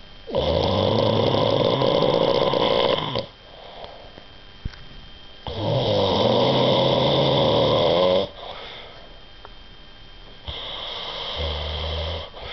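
Snoring: three long snores a few seconds apart, the first two loud and the third softer.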